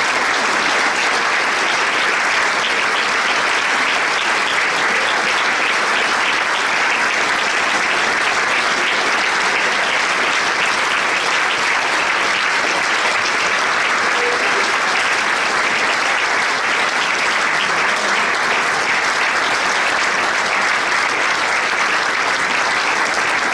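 Concert audience applauding, a dense, steady clapping of many hands that holds an even level throughout.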